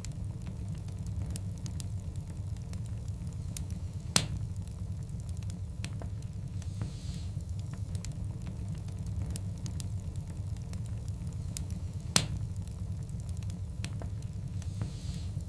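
Wood fire of large burning logs, with a steady low rumble and frequent small crackles. Two louder sharp pops come about four seconds in and about twelve seconds in, and soft hissing swells come now and then.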